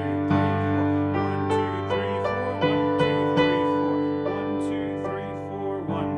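Kawai KG-2D upright piano playing a slow, gentle melody over chords. The right (sustain) pedal is held down, so each note rings on into the next.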